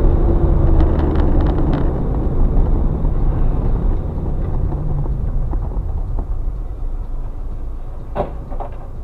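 Vehicle engine and road noise, a steady low rumble, with a sharp knock about eight seconds in.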